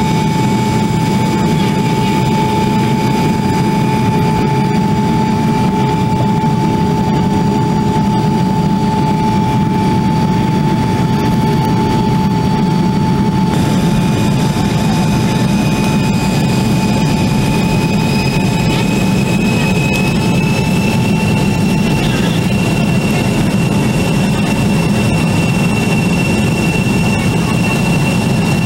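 Jet airliner cabin noise heard at a window seat over the wing: a steady loud rush of engine and air noise with a constant whine. A higher whine rises slightly in pitch about two thirds of the way through.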